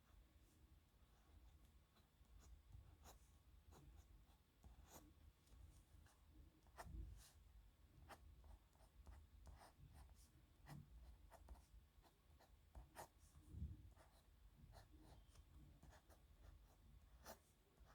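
Faint scratching of a pen nib on paper as handwriting strokes are written, with short ticks here and there as the nib touches down and lifts. There are two soft low bumps partway through.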